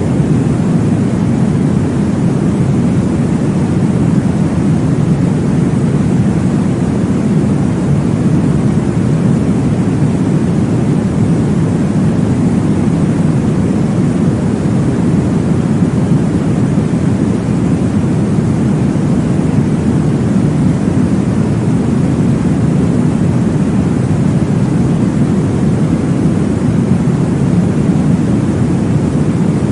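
Steady, deep rushing noise with most of its weight low down, played as a sleep sound for babies and meant to mimic the whoosh of blood flow in the womb.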